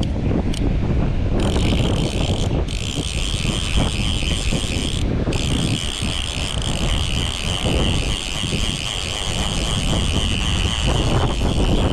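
Fishing reel's ratchet check buzzing fast as line is pulled off, in runs that stop briefly twice near the start, over steady wind and river rush.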